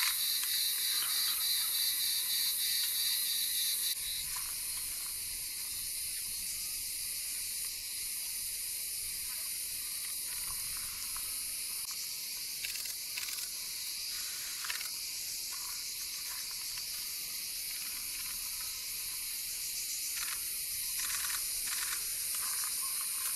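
A dense chorus of cicadas buzzing steadily, changing in tone about four seconds in.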